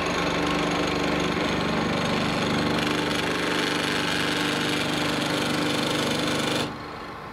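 A workshop machine tool running steadily as it cuts into a steel gun part clamped in a vise, a dense mechanical whirr with a steady hum. It stops abruptly near the end.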